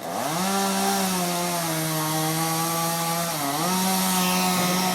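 Chainsaw running at high throttle: it revs up suddenly, its pitch sags a little for a couple of seconds, dips briefly about three and a half seconds in, then runs higher again before dropping away at the end.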